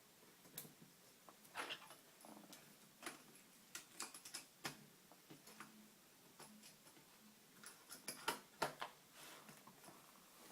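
Faint, irregular clicks and taps over quiet room tone, a few sharper ones around the middle and near the end.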